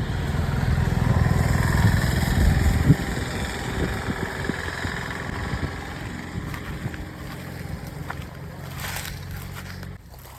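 A motor vehicle engine running, loudest in the first three seconds and then fading away.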